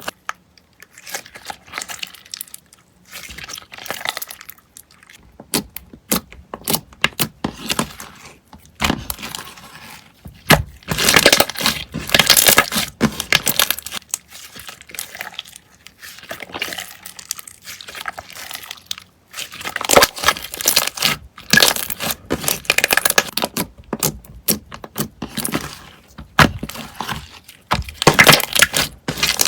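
Slime being squeezed, stretched and pressed by hand, making dense crackling clicks and little pops that come in irregular bursts.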